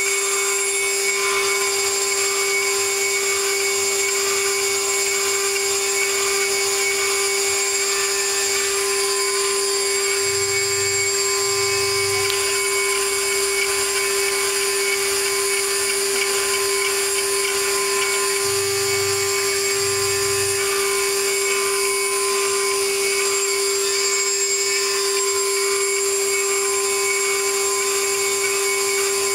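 Stone-engraving CNC router cutting into a stone slab: the water-cooled spindle runs with a steady whine while the bit grinds the stone.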